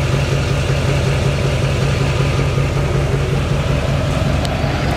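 Lifted pickup truck's engine idling close by: a loud, steady low rumble with an even pulse.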